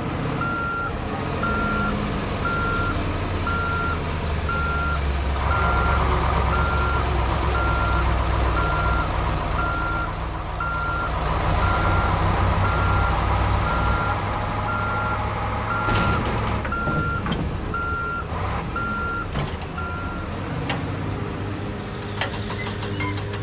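Vehicle reversing alarm beeping steadily, about twice a second, over a low engine rumble; the beeping stops about 20 seconds in while the engine runs on. A few sharp knocks sound near the end of the beeping.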